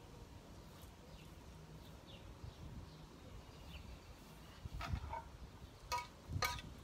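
Faint bird chirps over quiet outdoor background, then, in the last two seconds, a few ringing metal clinks of a utensil knocking against a stainless steel pot as it is picked up.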